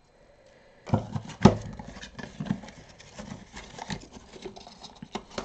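Small ink bottles and their cardboard boxes being handled on a tabletop: a run of light taps and knocks after about a second, the loudest about one and a half seconds in.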